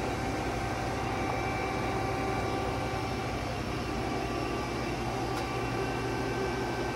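Steady machine hum with several held tones over a low rumble, unchanging throughout, from powered-up shop machinery.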